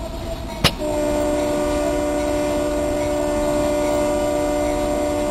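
Freight locomotive air horn sounding one long, steady multi-note chord, starting about a second in just after a short click, over the low rumble of the running train.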